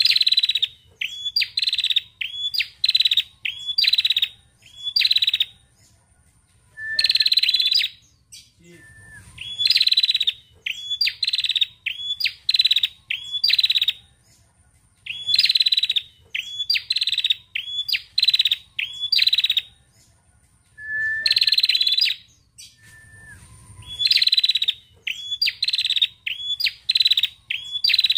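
Female ashy tailorbird calling: bouts of sharp, high chirping notes repeated several times a second, each bout a few seconds long, broken by short pauses.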